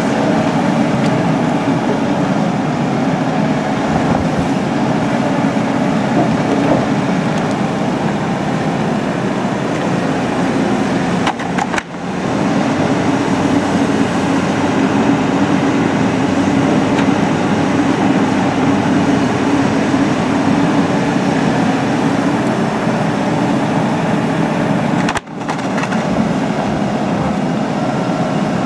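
Cat 320C tracked excavator's diesel engine running steadily under load with its hydraulics working, as the bucket digs and lifts stony, frozen soil, with a few faint knocks of stone. The sound cuts out briefly twice.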